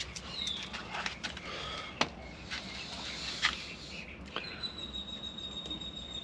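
Scattered light clicks and rubbing from handling and scrubbing a seatbelt buckle with soapy water. A thin, high whistle holds steady for about two seconds in the second half.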